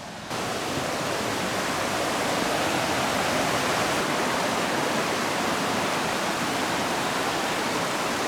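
Waterfall: a steady, even rush of water pouring over the falls, cutting in abruptly just after the start.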